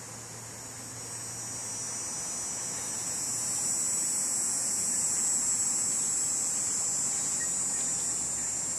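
Insects buzzing in a steady high-pitched chorus that swells louder over the first few seconds, then holds.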